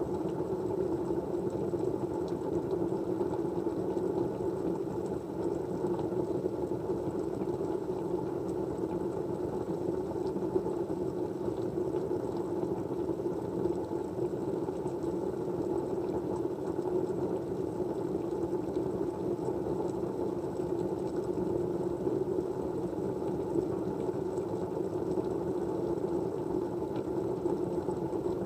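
Steady, muffled white-noise ambience with a low, even rush and no high hiss, with a few faint ticks, one about ten seconds in.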